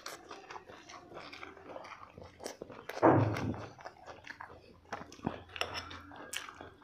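Close-up eating sounds: chewing, lip smacks and small wet clicks as chicken drumsticks and other food are bitten and chewed. About three seconds in comes a short, low, grunt-like sound, the loudest moment.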